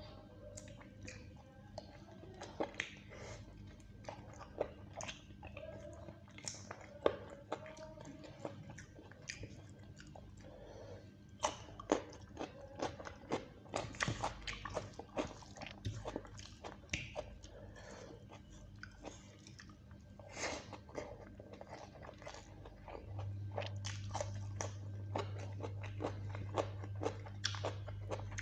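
Close-miked chewing and biting of chicken curry and rice eaten by hand, with many quick mouth clicks. A steady low hum comes in about three quarters of the way through.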